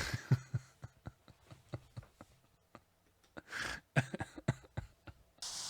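A man chuckling in short, irregular breathy bursts, with a louder breath about three and a half seconds in. Near the end a steady hiss comes in.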